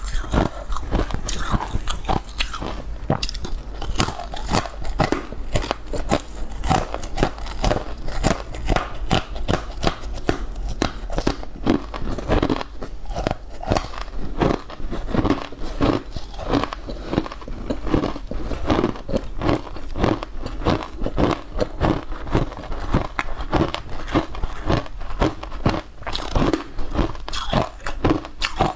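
Close-miked eating sounds: crunchy biting and chewing of a green powder-coated food, many crisp crunches a second without pause.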